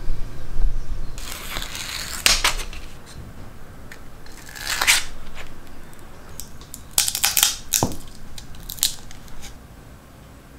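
Sheet of sandpaper being handled and wrapped around a small wooden drum: papery rustling and scraping in several short bursts, with a few small clicks.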